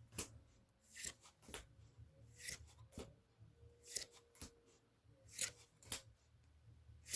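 Faint handling of foil booster packs and trading cards: scattered short crinkles and clicks, a dozen or so, spread irregularly.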